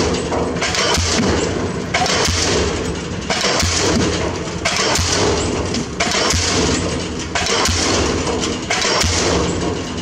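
Diesel pile hammer driving a pile, striking steady regular blows about once every 1.3 seconds.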